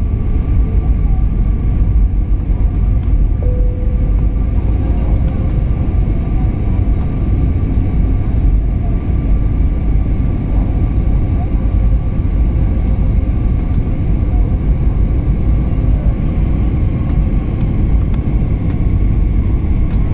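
Airbus A320 cabin noise during the descent: a loud, steady low rumble of the engines and rushing air, with a faint steady whine above it.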